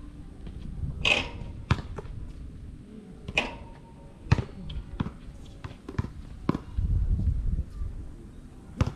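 A basketball bouncing on an outdoor concrete court: scattered sharp bounces at irregular intervals, two of them louder with a longer tail. About seven seconds in, a low rumble of wind on the microphone lasts for about a second.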